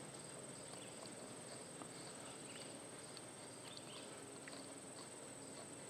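Quiet outdoor ambience with a steady, high-pitched insect drone, likely crickets. A few faint small clicks come from hands working a valve-core tool in a tire valve stem.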